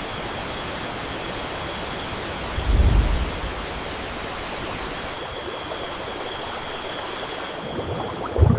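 Steady rushing noise with a faint steady high tone, broken by a low thump about three seconds in and another near the end.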